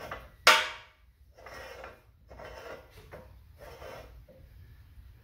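Steel pipe clanking once sharply against a Greenlee pipe bender about half a second in, then scraping in several short strokes as it is slid and worked into the bender.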